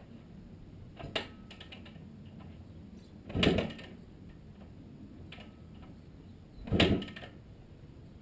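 Kick-starting a 1978 Yamaha YZ250E's 250 cc two-stroke single: two hard kicks, each a short clattering burst about half a second long as the engine is spun over, and it does not catch. A lighter mechanical click comes about a second in.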